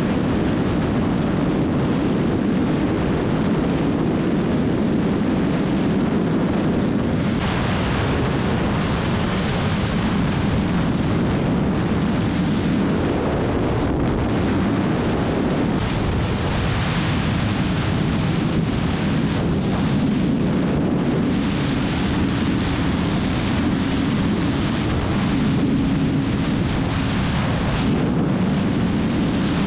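Heavy wind rushing over the microphone at about 200–230 km/h, with the Kawasaki Z900's inline-four engine running steadily at high revs in sixth gear beneath it.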